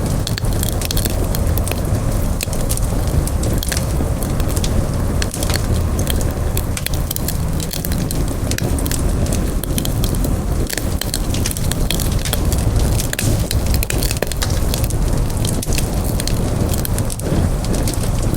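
Campfire burning, with a steady low rumble of flame and frequent sharp crackles and pops from the wood.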